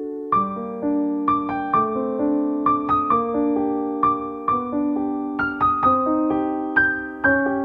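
Background music: a slow, gentle piano melody of single notes, each struck and left to fade.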